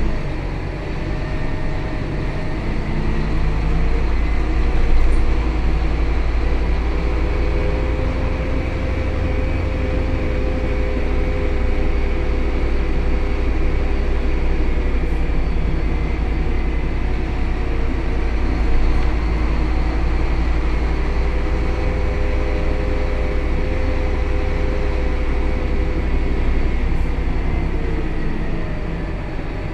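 Scania K280 city bus under way, heard from inside the cabin: a steady low engine and road rumble, with a drivetrain whine that swells and fades twice, in the middle and again in the second half.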